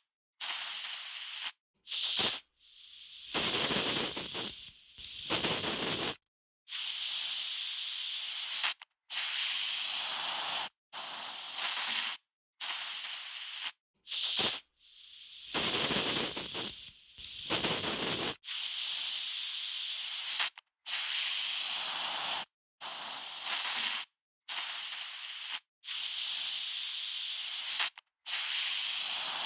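Aerosol spray can being sprayed in repeated short bursts, each a hiss of one to two seconds cut off sharply by a brief silence. A few of the bursts are longer and fuller.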